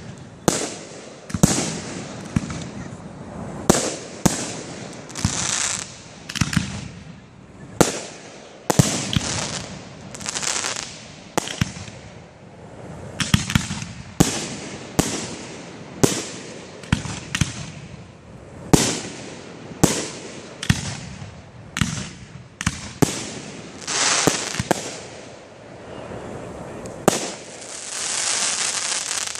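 Aerial firework shells bursting in a rapid string of sharp bangs, one or two a second, with crackling and hissing between them. A longer hiss builds near the end.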